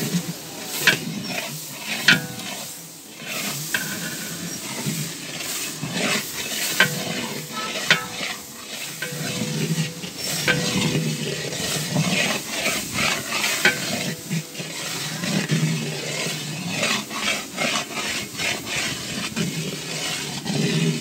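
A long-handled ladle stirring and scraping onion-and-chilli masala as it sizzles and fries in oil in a large aluminium cooking pot. The ladle knocks against the pot every few seconds.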